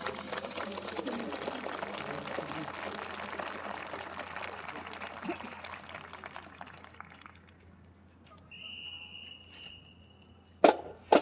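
Crowd applauding, dying away over several seconds. A steady high-pitched whistle follows for about two seconds, then near the end come sharp clacks, typical of rifles being struck in drill.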